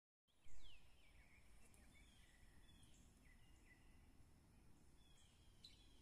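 Faint woodland ambience: scattered short bird chirps, several falling in pitch, over a low rumble and a faint steady high whine, with a brief louder bump about half a second in.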